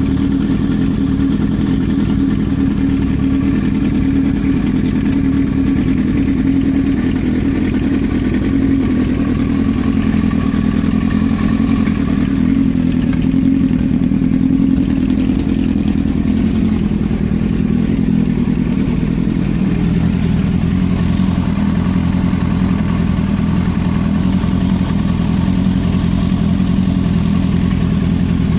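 Yamaha R1 inline-four engine running steadily with a clattering knock, which the owner presents as an engine knock.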